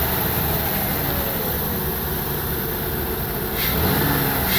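A 2003 Ford Windstar's 3.8-litre V6 idles steadily, purring on its brand-new ignition coil pack, which replaced a cracked coil pack that had caused misfires.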